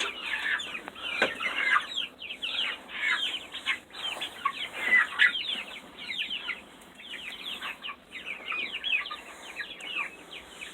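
A flock of chickens calling: many short, overlapping clucks with no pause.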